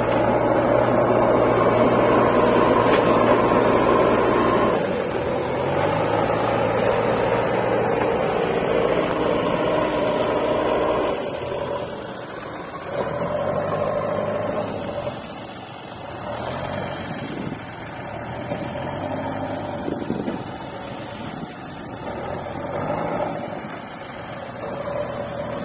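Diesel engine of a JCB backhoe loader working soil, with a tractor's engine running alongside. The engine note is steady for the first few seconds, then rises and falls again and again as the machine loads.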